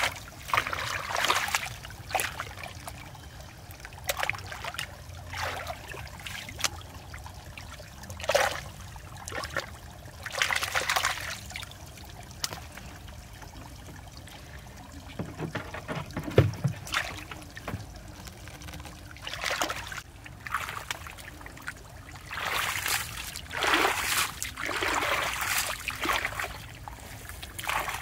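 Muddy water sloshing and splashing in irregular bursts as bare feet and hands move through a shallow mud pool, groping in the mud for fish. A dull thump about halfway through is the loudest sound, and the splashing comes thicker near the end.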